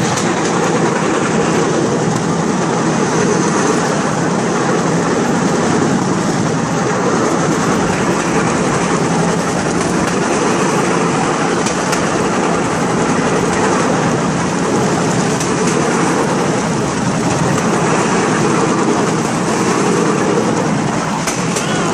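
Bamboo train (norry) running along the rails at speed: a steady, loud rattle of its steel wheels on the track with the hum of its small engine.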